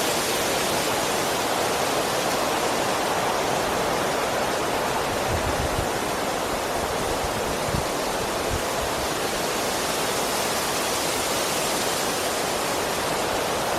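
Strong wind blowing through trees: a steady, even rush through the branches and leaves. A few brief low thumps come about halfway through.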